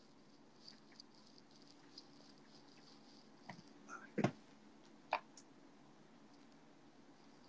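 Faint room tone with a low steady hum, broken by a few short clicks and knocks, the loudest about four seconds in.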